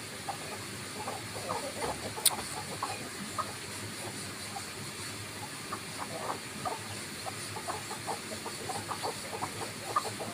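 Chickens clucking softly while they forage, with many short, low clucks scattered throughout. A single sharp click about two seconds in, over a steady high hiss.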